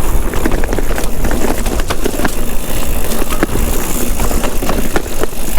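Hardtail mountain bike on a rough, wet trail descent, its wide 27.5 x 2.8 Maxxis Rekon+ tyres rumbling over dirt and rocks. Frequent sharp knocks and rattles come from the bike over bumps, with a deep rumble throughout.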